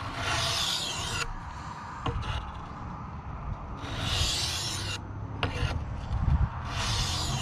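Stainless-steel knife blade drawn across a medium-grit oil stone: three long gritty scraping strokes a few seconds apart, at the medium stage of sharpening a very dull edge.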